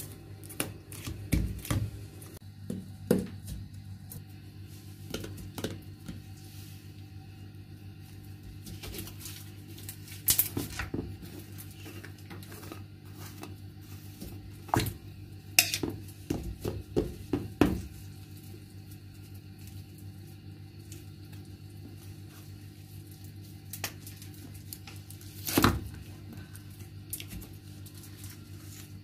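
Slime containers being handled on a granite countertop: a plastic lid pressed onto a cup and a metal screw-top tin opened, giving scattered clicks, taps and scrapes. There are a few louder clatters, the loudest about four seconds before the end.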